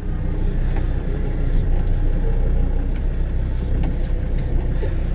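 Land Rover Defender TD5's five-cylinder turbodiesel idling steadily, heard from inside the cab, while the steering wheel is turned to work the newly fitted power steering pump.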